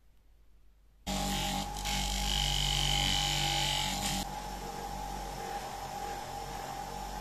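Bench grinder running, its motor giving a steady hum and whine while a steel rod is polished on the spinning buffing wheel. The sound cuts in about a second in, with a louder hiss and a high whine for about three seconds before it settles to a steadier, quieter run.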